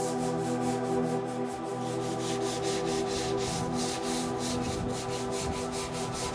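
Sanding by hand on car bodywork: a steady back-and-forth rasp of quick, even strokes, several a second, over background music.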